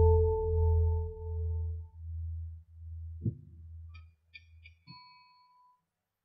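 Gamelan dying away after a gong stroke: the large gong's low, wavering hum and a ringing bronze note fade out over about four seconds. There is a single knock about three seconds in and a few faint high tones near five seconds.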